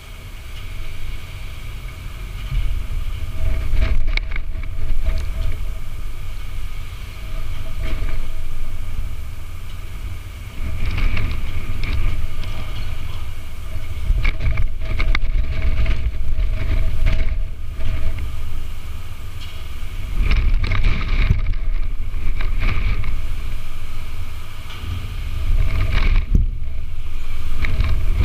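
Wind buffeting an outdoor microphone: an uneven low rumble with stronger gusts every few seconds, over a faint steady hum.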